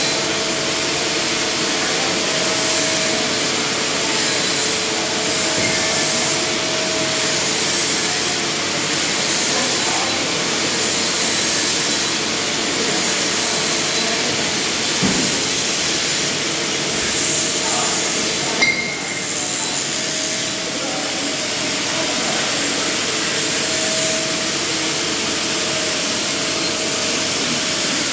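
Steady rushing hiss during TIG welding of a 2-inch stainless steel pipe in the 6G position, with a faint thin tone that comes and goes. There is a short click about two-thirds of the way in, and the hiss dips briefly after it.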